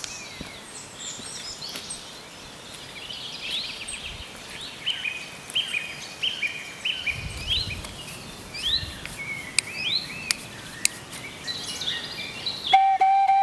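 Songbirds chirping and calling in woodland, one repeating a short note several times in a row. Near the end a small wooden flute starts playing clear, held notes.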